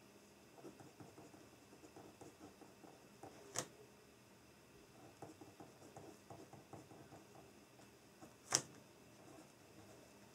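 Pen writing on paper, a faint scratching in short strokes, with two sharp taps about five seconds apart.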